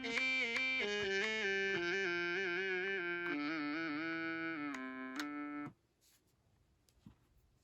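Akai MPK Mini Play MK3 mini keyboard playing one of its built-in synth sounds: a melody of held notes with a wavering, vibrato pitch. The notes stop suddenly about three-quarters of the way through, followed by near silence and one faint click.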